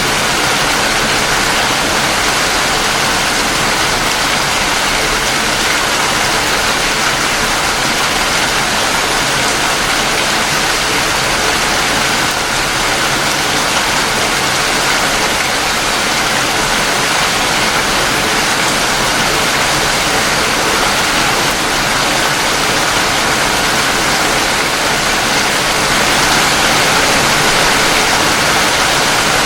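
Steady rain falling, an even wash of noise with no single drops standing out.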